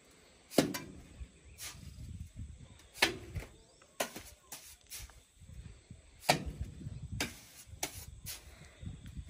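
Irregular sharp clicks and knocks, roughly one a second, over a low fluttering rumble.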